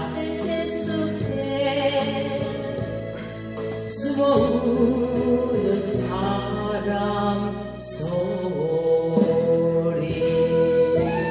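A Korean ballad-style pop song: singing over a backing track with a melody line.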